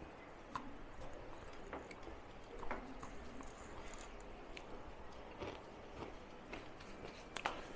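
Eating sounds: chewing, with scattered small clicks and taps, the sharpest near the end.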